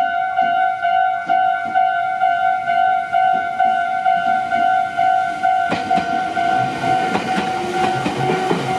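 Japanese level-crossing alarm ringing, a rapid, evenly repeated two-tone ding. About six seconds in, a Meitetsu train reaches the crossing and runs past, its wheels clattering over the rail joints under the continuing bell.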